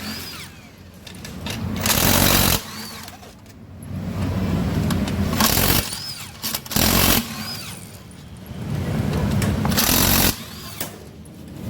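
Impact wrench loosening the bolts of a Yamaha NMAX's CVT casing, in four short bursts of about half a second each, with quieter tool handling between them.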